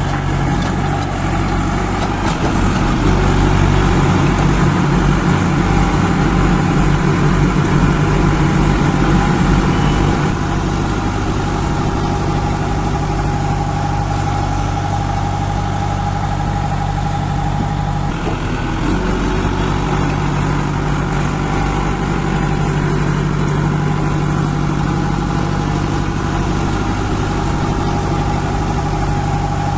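JCB 2DX backhoe loader's Kirloskar diesel engine running steadily. It is louder and rougher for several seconds near the start, then settles back to an even run.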